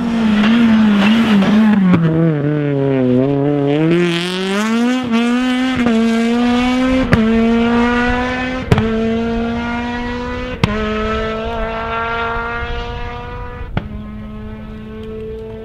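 Honda Civic Type R R3 rally car's four-cylinder engine at full throttle: its pitch drops as the car slows for a corner, then climbs as it accelerates away through the gears, with four sharp cracks at the gear changes. The sound fades as the car goes away.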